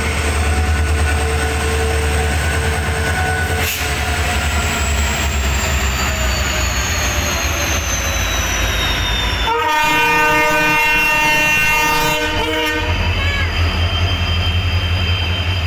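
Back-to-back EMD diesel locomotives under full load passing at speed with a loaded freight train, their engines giving a deep steady rumble and a high whine that falls in pitch as they go by. About nine and a half seconds in, a train horn blows one long blast of about three seconds, then loaded freight wagons rumble past on the rails.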